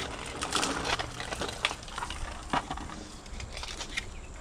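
Plastic packaging crinkling and rustling as a pack is opened and handled, with a few sharp clicks and taps scattered through.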